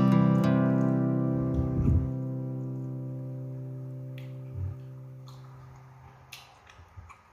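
Background music: a strummed guitar chord left to ring, fading slowly over about six seconds, with a few faint clicks near the end.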